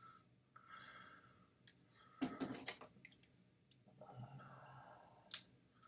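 Scissor blades clicking and scraping against the hard plastic case of a rechargeable battery pack as they are forced under its seam to pry it apart. The clicks come irregularly, in a cluster about two to three seconds in, with one sharp loudest click near the end.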